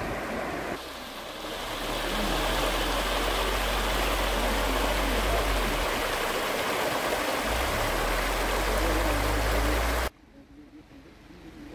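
Muddy floodwater rushing fast down a road, a loud steady rush of water that cuts off sharply about ten seconds in.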